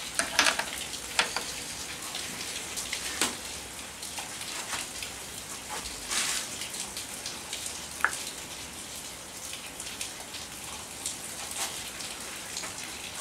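Scattered light clicks and rustles of gloved hands handling a Veterok-8 outboard's flywheel and starter cord, over a low hiss, with one sharper click about eight seconds in.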